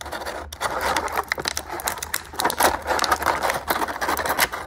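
Clear plastic blister-pack tray crinkling and crackling steadily as hands flex and handle it.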